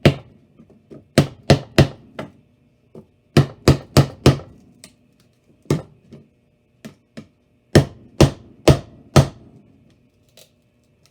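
Hard blows struck on the bare electronics of an iPhone 8, meant to restore broken solder connections: loud sharp knocks in quick runs of three or four, about two or three a second, with pauses between the runs.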